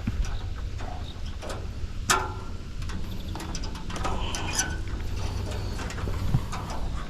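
Scattered clicks, taps and light knocks of hand work on a heat pump's outdoor unit as a new defrost sensor is clipped in and its wire fished through, with one sharper knock about two seconds in. A low steady rumble runs underneath.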